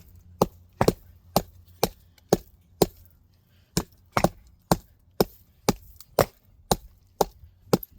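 Axe blows chopping into a wooden log, about two strikes a second in a steady rhythm, with a brief pause a little before the middle.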